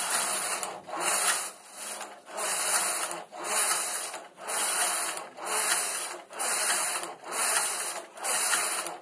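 A domestic punch-card knitting machine's carriage being pushed back and forth across the metal needle bed, knitting plain jersey (stocking-stitch) rows. Each pass is a sliding, clattering rush of the needles, about one a second, with a short break as the carriage reverses at each end.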